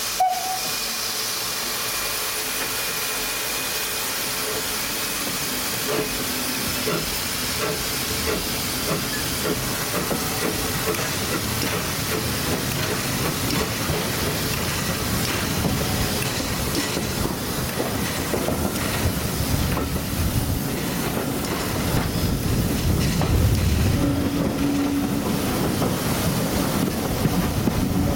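Brighton Terrier 0-6-0 tank steam locomotive no. 32678 working a train, heard from the carriage just behind it: a steady hiss of steam and exhaust over running rail noise, with the rumble of wheels on track growing stronger over the last few seconds.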